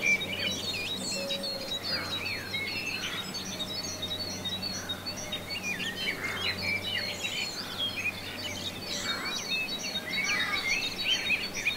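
A dense chorus of many birds chirping and whistling, calls overlapping throughout, with a few faint, soft held music notes underneath.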